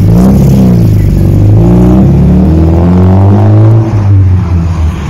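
Mercedes-Benz 190E in DTM racing livery accelerating away hard, its engine revving up in pitch and dropping back at each gear change several times over.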